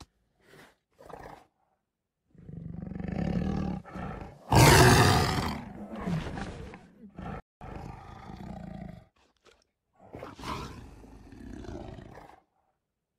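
Recorded tiger growls and a roar from Google Search's 3D AR tiger: a low growl starts about two seconds in, a loud roar comes near the middle, and shorter growls follow until near the end.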